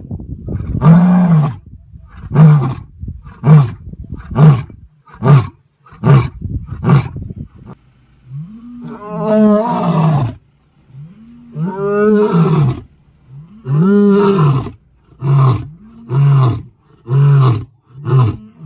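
A lion roaring: a run of short, deep grunting calls about one a second, then three longer roars a couple of seconds apart in the middle, then another run of short grunts.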